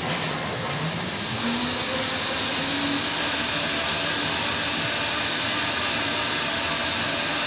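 Countertop blender motor starting up and running at full speed, pureeing boiled peppers with milk, ice and olive oil into a thin sauce. Its pitch climbs over the first two or three seconds as it spins up, then holds steady.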